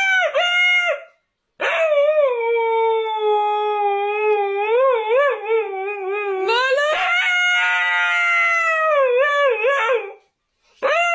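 Husky howling: a call that breaks off about a second in, then one long howl of about eight seconds that wavers up and down in pitch and climbs higher partway through, and a short howl near the end.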